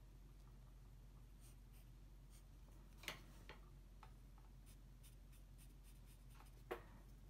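Faint pencil strokes scratching on drawing paper, with two short sharp ticks of the pencil, about three seconds in and near the end.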